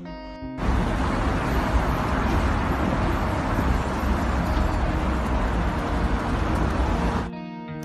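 A steady, loud rushing noise with a deep rumble. It starts about half a second in and cuts off suddenly near the end, with guitar music on either side.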